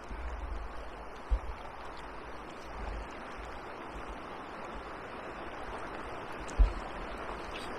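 Steady rush of water pouring over a weir, with low wind buffeting on the microphone and a dull thump near the end.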